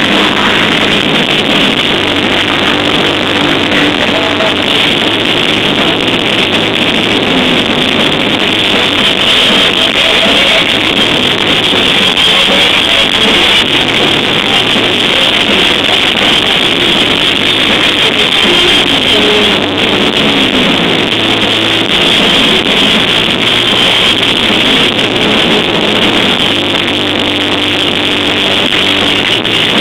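Heavy metal band playing live: distorted electric guitars over bass and drums, loud and dense without a break.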